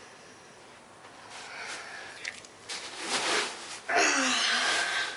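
Rustling and shuffling as a person settles into a bean bag chair, building from about a second in, with a loud breathy vocal sound about four seconds in.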